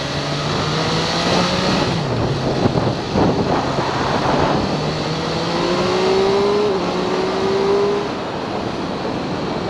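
MV Agusta F3 675 motorcycle's inline-three engine accelerating and shifting, its pitch climbing and then dropping at each gear change. It echoes off the concrete of an elevated expressway overhead.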